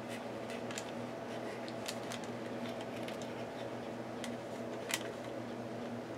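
Paint marker tip tapping and scratching on a paper page, a handful of short faint ticks with a sharper one near five seconds in, over a steady low hum.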